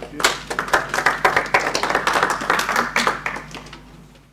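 Audience clapping, a dense run of separate hand claps that starts right after the closing thanks and fades away near the end.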